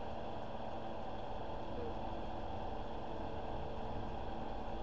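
Electric fan running, a steady hum.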